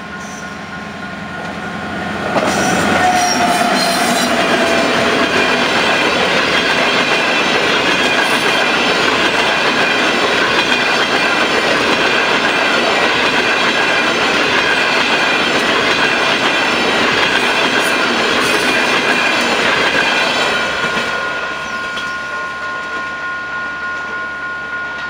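Diesel-hauled long-distance passenger train passing at speed over a level crossing, its wheels clattering over the rail joints and the crossing. The noise comes in suddenly about two seconds in and eases off a few seconds before the end. Under it the crossing's warning signal rings on steadily in two tones.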